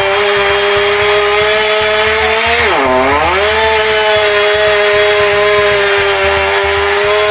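Chainsaw running at high revs, its pitch dipping sharply about three seconds in and then climbing back to a steady high whine.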